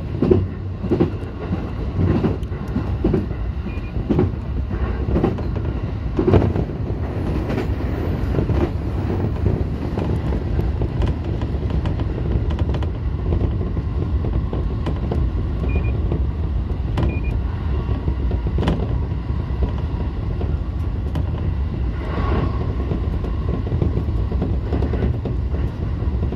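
Tokaido Line electric train running, heard from inside the front car: a steady low rumble, with sharp wheel clicks over rail joints and points during the first several seconds as it crosses the station turnouts.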